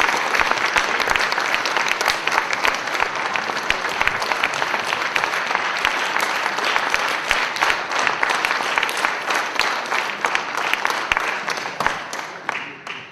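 Concert-hall audience applauding with dense, steady clapping that dies away near the end.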